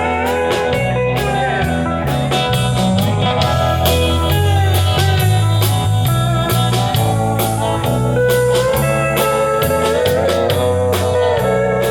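A band plays an instrumental break in a blues-rock style: a lead guitar solo with bent notes over bass and a drum kit.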